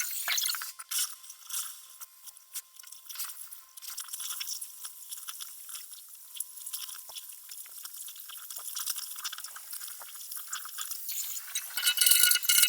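Oxy-fuel cutting torch cutting through steel on a backhoe bucket: a steady hiss full of crackles and small pops, growing louder near the end.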